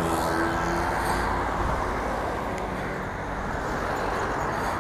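Honda CB1000R's inline-four engine running at low speed, a steady sound mixed with street traffic passing close by.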